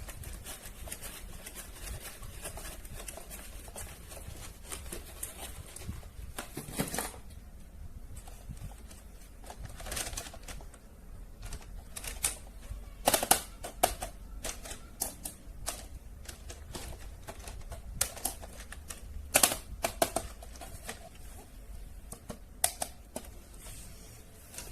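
Hands handling toys and packaging, making irregular sharp clicks and taps. The clicks are quick and small at first, then sparser and louder in the second half, over a faint low hum.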